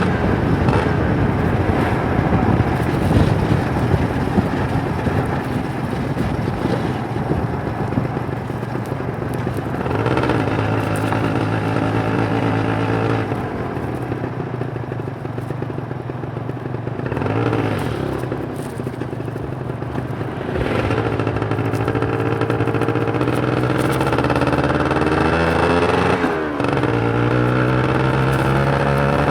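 Kawasaki Ninja 150 RR's single-cylinder two-stroke engine under way, its pitch climbing and dropping again and again as it pulls through the gears and eases off. Near the end, a sharp break, then the revs climb once more.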